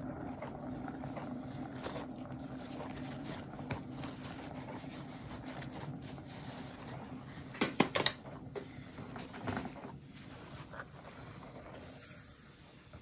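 Spinning turntable under a paint-poured canvas, a steady hum that fades as it slows down, with a few sharp knocks about eight seconds in.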